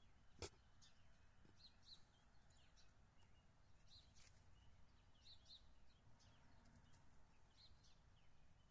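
Faint outdoor quiet with small birds chirping in the distance, short high calls repeated every second or so. A single sharp click about half a second in.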